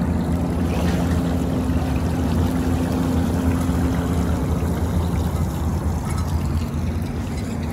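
Lake water pouring and splashing off a boat trailer as it is pulled up the launch ramp, over the steady low hum of an engine running.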